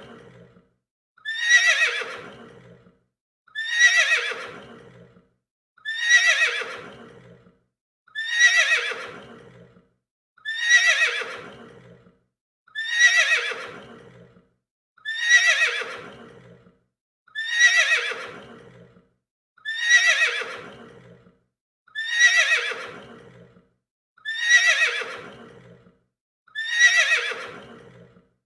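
Horse neighing: one short whinny repeated over and over about every two and a quarter seconds, each call starting high, sliding down in pitch and fading out.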